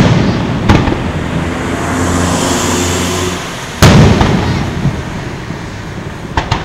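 Aerial firework shells bursting: a sharp crack about a second in, then a loud boom about four seconds in that rumbles away, and two small cracks near the end. A steady low hum runs between the bursts.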